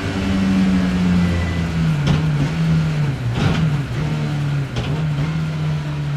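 BMW E30 M3's four-cylinder engine heard onboard, running at steady moderate revs with its pitch easing slightly lower, broken by three brief noises about two, three and a half, and five seconds in.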